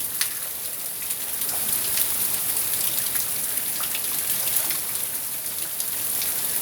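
Steady rain from a thunderstorm, with scattered drops tapping close by.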